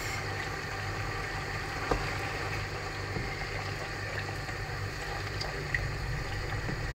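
Tomato and onion stew base simmering and sizzling in palm oil in a frying pan, stirred with a wooden spatula that gives a couple of light knocks. A low steady hum runs underneath.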